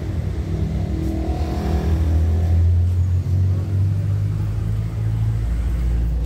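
Low, steady engine rumble, with a stronger engine note swelling for a couple of seconds near the start.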